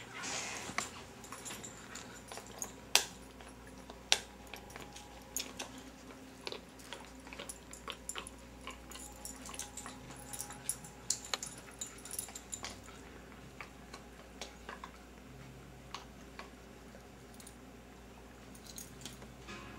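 Scattered sharp clicks and crackles from Siberian huskies rummaging after treats. The two loudest come about three and four seconds in, with a thicker run of crackling in the middle.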